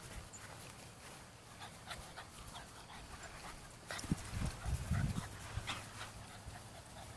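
Small dog panting as it runs and plays on dry grass, its paws rustling and pattering through the grass. A louder stretch of low thumps and rustles comes about four seconds in and lasts a second or so.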